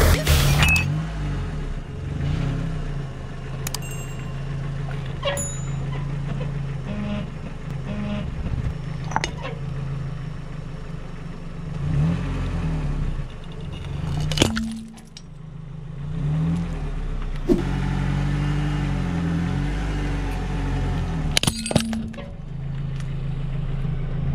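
Car engine running low and steady as its tyre rolls over two ceramic mugs, with several sharp cracks of the mugs breaking. The loudest crack comes about halfway through.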